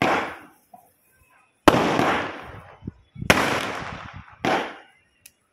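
Ayyan 'Dil Maange More' aerial firework going off: four loud bangs about a second and a half apart, each fading away over about a second.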